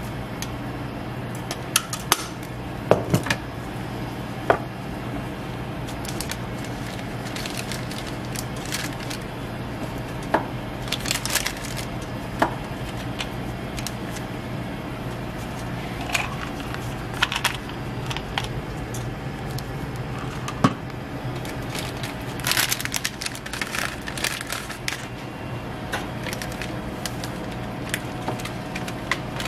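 Gloved hands handling snack toppings on a crepe in a paper cone: scattered light clicks and taps, with short bursts of rustling, over a steady low hum.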